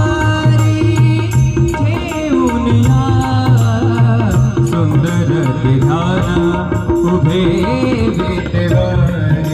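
Indian devotional music with a steady drum beat under a gliding melodic line, between sung lines of a Vitthal abhang.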